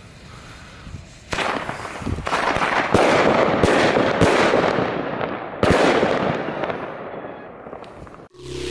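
Nico Flash Bang firecrackers going off: a first bang about a second in, then a dense run of sharp bangs and crackling with several louder reports, fading off and cutting out abruptly near the end.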